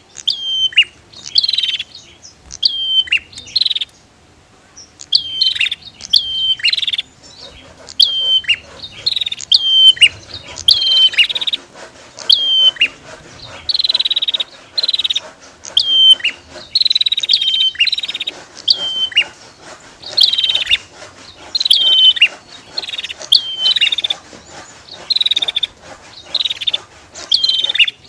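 Female and male bar-winged prinias (prenjak) calling: sharp chirps that each fall steeply in pitch, repeated in quick clusters of several calls with short pauses between, some calls overlapping.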